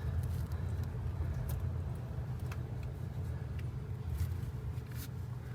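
Steady low background hum with a few faint, light clicks scattered through it.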